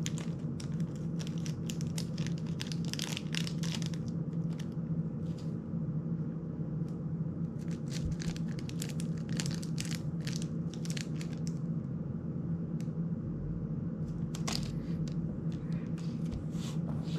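A small clear plastic parts bag crinkling in the hands, with light clicks of small drone parts being handled, in bunches of crackles that thin out in the last few seconds. A steady low hum runs underneath.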